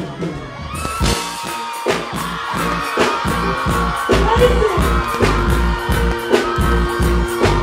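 A live reggae/dancehall band playing on stage, with a steady drum beat about once a second and a heavy bass line that comes in fully about four seconds in. A man's voice is heard over the music.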